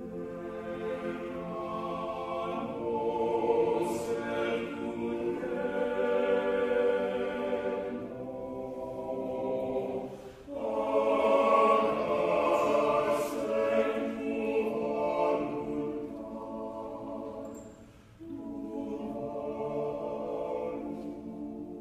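A choir singing long held chords in slow phrases, with short breaks about ten and eighteen seconds in.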